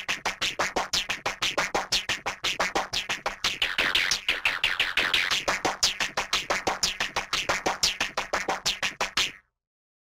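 A cartoon transition sound effect: a fast run of short chirps, each falling in pitch, about eight a second, climbing higher in the middle and cutting off sharply near the end.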